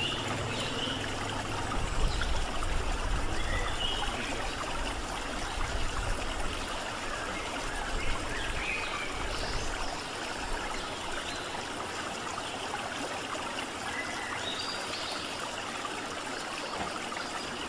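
Steady rushing of running water, with a few faint short chirps above it.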